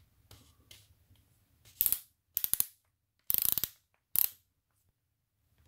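Clutch torque-setting collar of a Bosch PSR 1800 LI-2 cordless drill driver turned by hand, ratcheting through its detents in four quick runs of rapid clicks.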